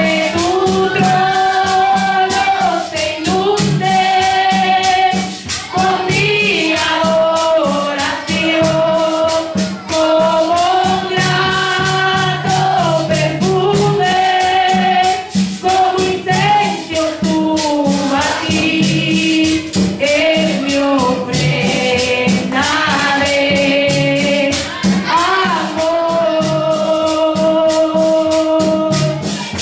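A woman singing a Spanish worship song through a microphone and PA, holding long notes, over a steady rhythm of metal hand percussion being shaken or scraped.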